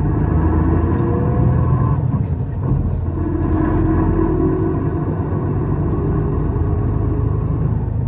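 Isuzu Erga city bus (PKG-LV234L2) heard from inside the cabin: a steady engine and drivetrain rumble with a whining tone that comes and goes. This bus is known for an abnormal running noise.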